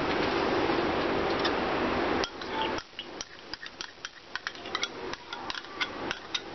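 A steady hiss for about two seconds, then a run of quick, irregular clinks and scrapes: a metal spoon scraping yogurt out of a glass bowl and tapping against its rim.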